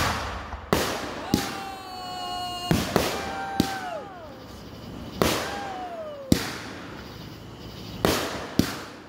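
Consumer aerial fireworks going off in quick succession: about nine sharp bangs of launches and bursts overhead. Several are followed by a held whistle that slides down in pitch.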